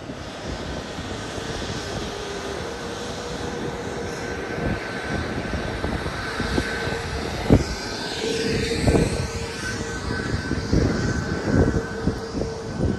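Aircraft engine noise at an airport: a steady whine over a running rumble, swelling and sweeping in the middle as if an aircraft passes.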